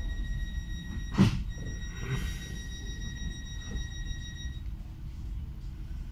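Regional train running, heard from inside the carriage: a steady low rumble with a high steady whine that stops about four and a half seconds in. A sharp knock about a second in is the loudest sound, with fainter knocks after it.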